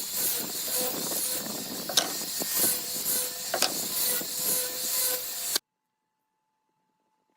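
Workshop power tool running with a harsh, hissing noise and a few sharp clicks. It cuts off abruptly about five and a half seconds in, leaving near silence.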